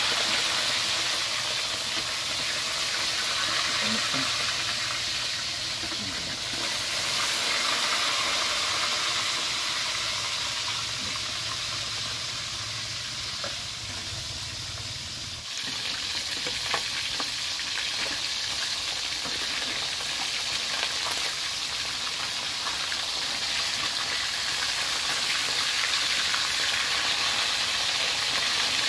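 Whole tilapia frying in hot oil in a wok, a steady sizzle. A metal spatula now and then scrapes and taps against the pan as the fish are turned.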